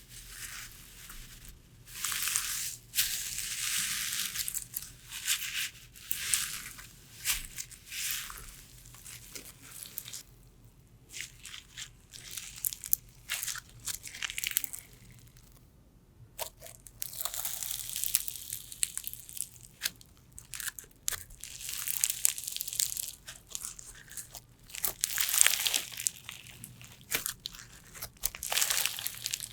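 Slime being squeezed and pressed by hand: irregular bursts of crisp crackling and popping, each a second or two long, with short pauses and the loudest burst near the end.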